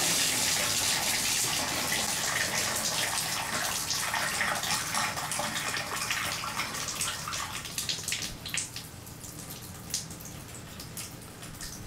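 Water running out of a tub spout and splashing into the tub, slowly tapering off. The house supply is shut off and the valve has been opened to relieve pressure, so this is the water left in the pipes draining down.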